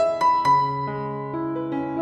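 Background piano music: a slow, gentle melody of single struck notes that ring on and overlap.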